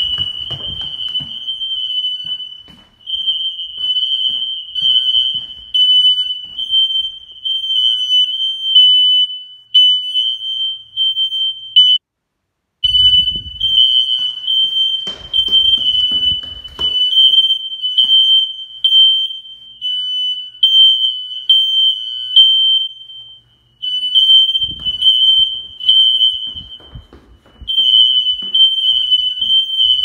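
Several newly installed, interconnected Kidde i12060 hardwired smoke alarms sounding together in test mode, set off by one unit's test button held in the basement. The alarm is a loud, shrill, high-pitched beeping that breaks off briefly just before the middle. Footsteps thud on wooden stairs now and then.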